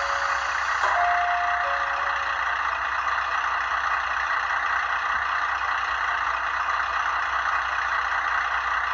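Diesel railcar engine idling steadily: the recorded sound of a JR Kiha 40 played from the speaker of a DCC sound decoder in an HO-scale model. In the first couple of seconds a two-note descending chime sounds over it.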